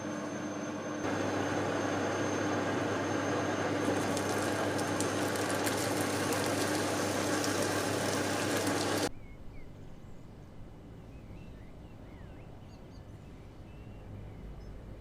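A steady machine-like whooshing noise with a low hum, stepping up louder about a second in, cuts off abruptly about nine seconds in. Quiet outdoor ambience with a low rumble and small birds chirping follows.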